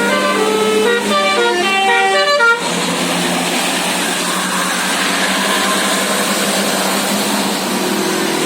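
Tour bus's telolet basuri musical air horn playing a quick tune of short stepped notes, which cuts off abruptly about two and a half seconds in. Steady vehicle noise with a low hum follows.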